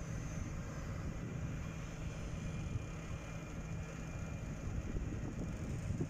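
Vögele tracked asphalt paver's diesel engine running with a steady low drone as the paver crawls down the trailer's loading ramps.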